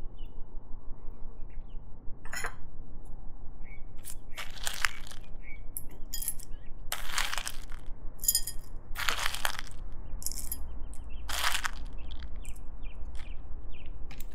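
Small pieces of cocoa butter and shea butter dropped by spoon and by hand into a heat-proof vessel: an irregular series of clinks and short rattles, a few of them longer as a handful goes in.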